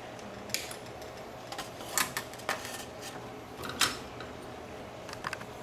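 Irregular sharp clicks and taps over a steady low hum. The loudest clicks come about two seconds in and just before four seconds, with a quick cluster near the end.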